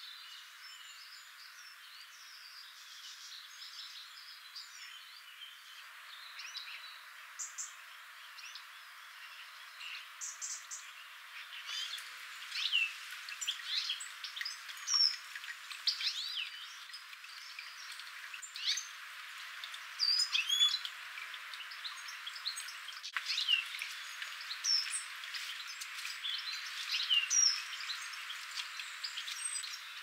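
Several garden birds singing and calling together, a busy mix of short chirps and whistled notes that grows much denser about halfway through, over a faint steady hiss.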